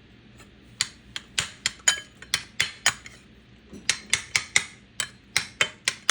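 Metal spoon clinking against a bowl in a quick run of sharp taps, about three or four a second, as it digs into a microwaved sunny side up egg; the taps stop for a moment around the middle, then start again.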